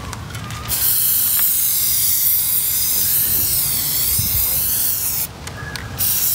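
Plasti Dip aerosol spray can spraying in a long hiss that starts under a second in, stops briefly about five seconds in, then starts again.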